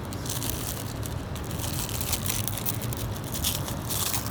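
Plastic packaging crinkling and rustling in irregular crackles as the boxed brake light is handled, over a steady low hum.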